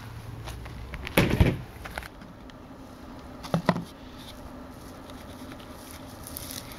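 Handling sounds from a terracotta saucer lid and a white PVC pipe sunk in garden soil. There is a dull thump about a second in, then two quick light knocks near the middle.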